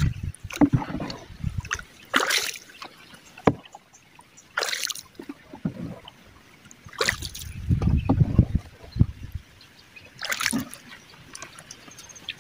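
Wooden canoe being paddled: the paddle splashes into the water four times, about every two and a half seconds, with dull low rumbles between strokes.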